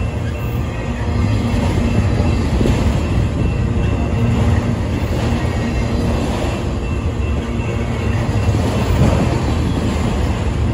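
Freight train of autorack cars rolling past close by: a steady, loud rumble of steel wheels on the rails.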